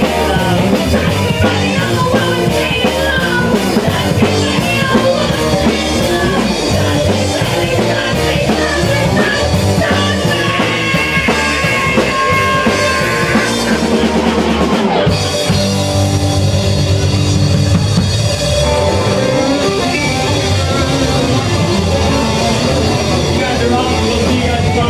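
Live rock band playing loud, with electric guitar over a drum kit. The music breaks off for a moment about fifteen seconds in, then a new section starts.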